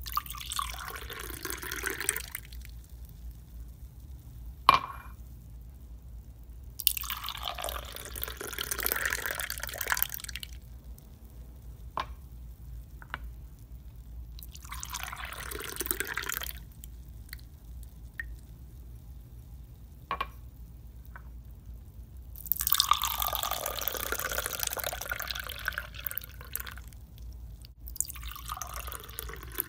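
Liquid poured into a wine glass in five separate pours of a few seconds each, each a splashing fill. Single sharp clicks fall in the gaps, the loudest about five seconds in, over a low steady hum.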